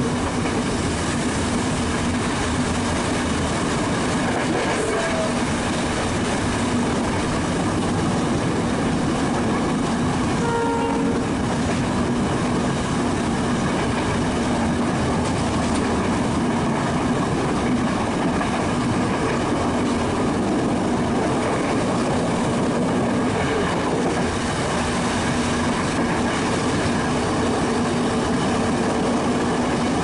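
Train running steadily at speed, heard from inside a carriage: a loud, even rumble and rattle of the wheels on the track, with a steady low hum underneath.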